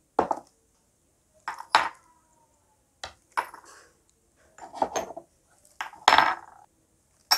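Miniature ceramic pots, cups and saucers clinking and knocking as they are handled and set down on a table: about eight short knocks with pauses between them, one of them about two seconds in ringing briefly.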